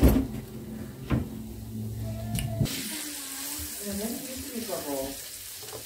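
Burger patties sizzling in hot oil in a frying pan, starting abruptly a little under halfway through, with a voice talking over the sizzle. Before that, a low steady hum with a few sharp clicks.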